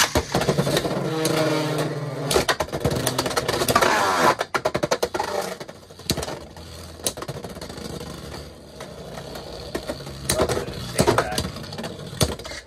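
Two Beyblade X tops, Tyranno Beat 4-80 Rush and Knight Mail 9-60 Ball, launched into a plastic stadium and spinning against each other. A steady whirring hum fills the first two seconds, then a flurry of sharp plastic clicks and scrapes as they collide, with another run of hits near the end.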